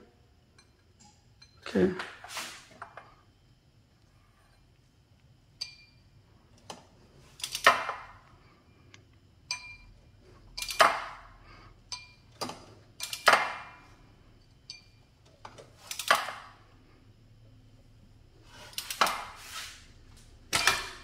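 Scattered metallic clinks and scrapes, about ten short bursts a second or two apart, from a wrench on the crankshaft pulley as the Audi 3.2 V6 is turned over by hand with its cam covers off.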